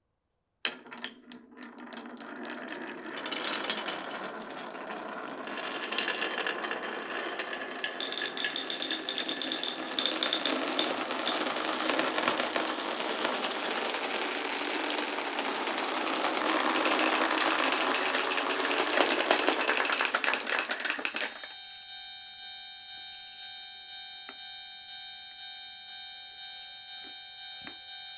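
Many marbles rolling and clattering together down wooden and plastic marble-run tracks, a dense run of clicks that builds up and then stops abruptly about 21 s in. A railroad-crossing bell then rings in an even repeating beat.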